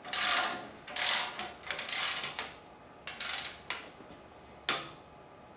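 Ratcheting torque wrench tightening an engine mount bolt in stages, heard as five or six short bursts of ratchet clicks as the handle is swung back and forth.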